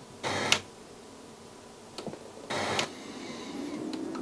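Two short bursts of FM radio hiss from the Sony STR-AV270 receiver as its auto-tuning scans up the band between stations, with faint clicks and a quiet gap between them.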